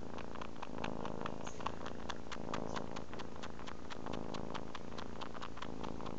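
Kitten purring steadily while suckling. Its mouth makes quick wet clicks, about five a second, over the purr.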